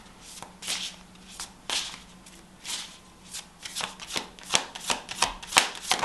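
A deck of tarot cards being shuffled by hand: a run of soft, papery swishes that come faster and closer together over the last two seconds.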